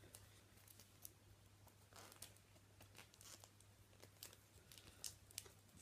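Near silence, with faint scattered rustles and light clicks of trading cards and foil pack wrappers being handled.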